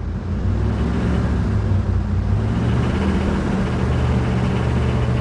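Jeep Grand Cherokee WJ's 4.7-litre V8 running, heard from inside the cabin. It has an engine knock that the owner thinks may need the engine pulled to fix.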